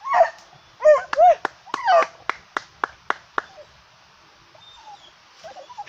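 A hunting dog yelps about four times in quick succession while baying quarry holed up in a burrow. A quick run of about six sharp clicks follows over the next second and a half.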